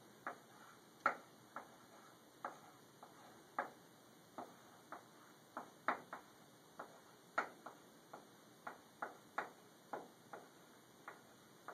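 Chalk writing on a blackboard: short, irregular clicks and taps of the chalk striking the board, about two a second.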